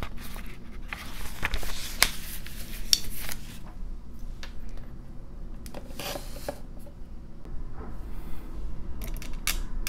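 Pages of a paper notebook rustling as they are leafed through, mixed with a few light taps and knocks as the notebook is handled and laid open flat.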